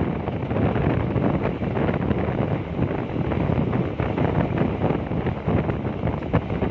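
Wind buffeting the microphone at the open window of a moving passenger train, over the steady running noise of the train on the track.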